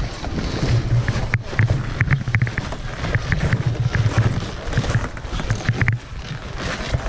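Wind buffeting the action camera's microphone in a loud, uneven low rumble, with footsteps underfoot.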